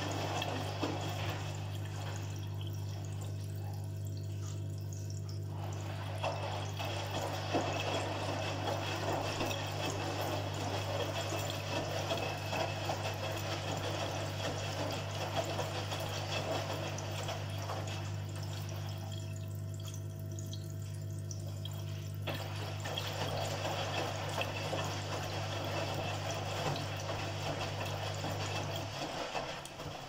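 Front-loading washing machine filling: water pours and splashes into the drum onto sudsy laundry, over a steady low hum. The splashing drops away twice for a few seconds, and the hum cuts off just before the end.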